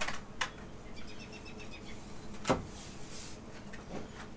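A small bird chirps a quick run of short high notes about a second in. Halfway through, a single sharp knock as a metal socket rail is set down on a wooden table, with a few light handling clicks near the start.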